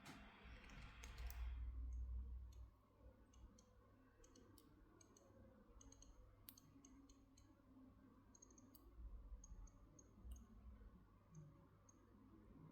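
Faint rustling for about the first two seconds, then scattered small, light clicks and taps from handling a wristwatch and its packaging.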